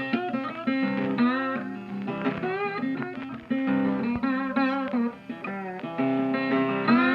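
Intro music: a melody whose notes bend and slide up and down over steady repeated low notes.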